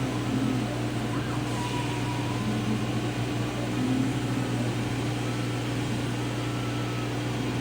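CO2 laser cutter running steadily, a constant machine hum from its exhaust fan and air pump, with faint, slightly shifting whining tones from the moving cutting head.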